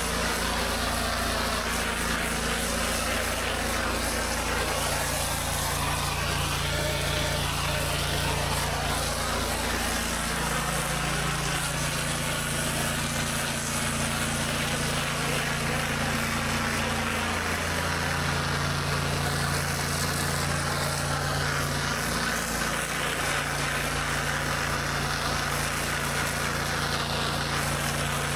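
Engine of an 8-gallon-a-minute pressure washer running steadily, its pitch stepping up and down every few seconds as the load changes, over a steady hiss of spraying water.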